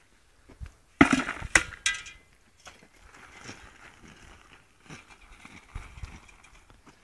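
Olives clattering out of the wire cage of a hand-pushed olive-picking roller as it is tipped to empty into a plastic bucket, a burst of rattling clicks about a second in. Faint rattling and scraping follow as the roller is handled and moved over the ground.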